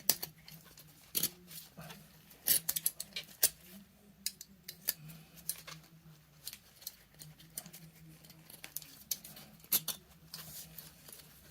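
Steel striker key worked in the brass slot of a Type 6 Protector Lamp middle, turning the flint wheel against the flint: irregular metallic clicks and scrapes, some in quick clusters.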